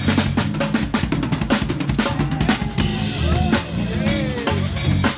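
A child playing a drum kit in a live band jam: rapid snare and bass-drum hits with cymbals over sustained bass notes and electric guitar, with a few gliding higher notes partway through.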